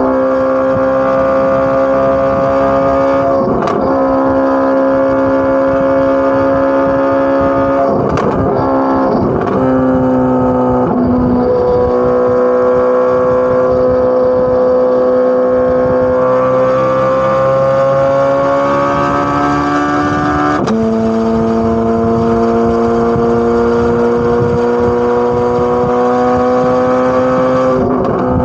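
Corvette C8 Z06's flat-plane-crank V8 exhaust running steadily at mid revs. Its pitch creeps slowly up and drops back twice, about a third and two-thirds of the way through, and a few short sharp cracks are heard.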